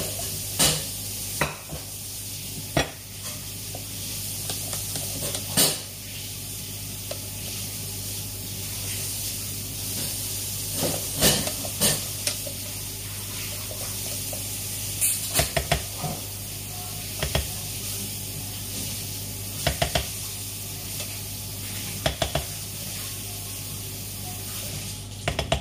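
Spatula knocking and scraping against a stainless steel saucepan as thick batter is scraped out of it: a dozen or so short, sharp clinks and knocks at irregular intervals over a steady hiss and low hum.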